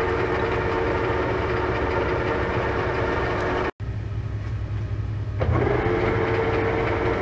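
Metal lathe running steadily under the low hum of a rotary phase converter. After an abrupt cut, the spindle is briefly stopped and only the low hum remains. About 5.5 seconds in, the clutch is engaged and the lathe's gear whine comes back.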